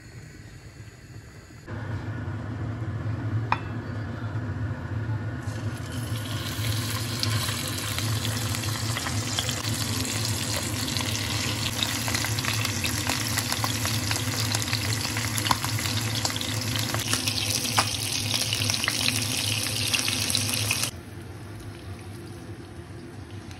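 Fish roe frying in oil in a non-stick pan: steady sizzling with scattered crackles over a low hum. It starts abruptly about two seconds in, grows brighter a few seconds later, and stops suddenly near the end.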